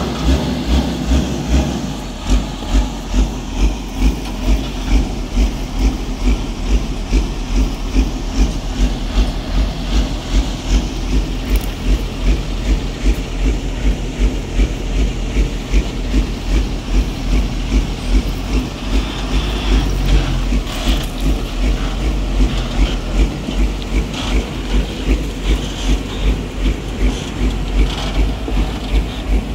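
Heavy diesel engine running close by, with a steady low hum and a regular low thump about twice a second.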